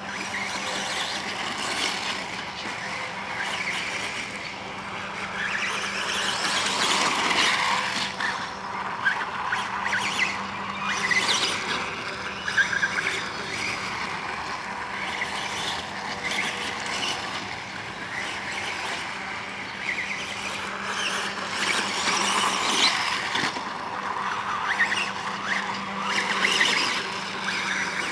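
Radio-controlled dirt bike running around a dirt track, its motor and tyres swelling and fading as it speeds up and slows through the turns.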